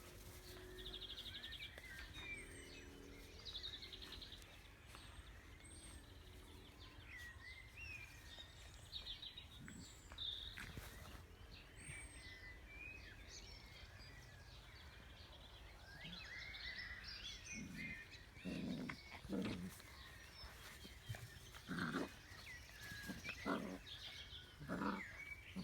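Puppies playing, with small squeaks and yips throughout and a run of louder yaps and growly barks from about two-thirds of the way in.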